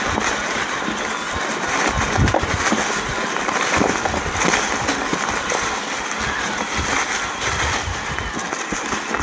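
Mountain bike descending a rocky trail: tyres crunching over loose stones and the bike rattling over rough ground, a dense run of small clicks and knocks over a steady rush of noise.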